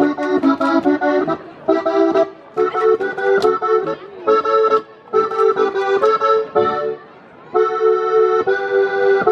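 Accordion playing a folk dance tune: held chords in short, rhythmic phrases with brief breaks, and a longer pause about seven seconds in. A few sharp cracks sound over the music.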